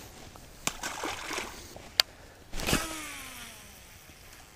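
A small splash about a second in, a sharp click, then a cast: the Quantum Team KVD baitcasting reel's spool whirring as line pays out, its whine falling in pitch over about a second as the spool slows.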